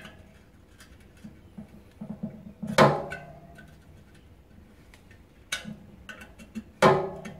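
Tight spoke nipples on a motorcycle wheel being cracked loose with a spoke spanner: two sharp metallic cracks, one about three seconds in and one near the end, each ringing briefly through the spoke, with lighter ticks and taps between them.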